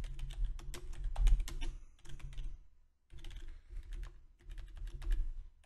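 Typing on a computer keyboard: quick runs of key clicks, with a short pause a little under halfway through.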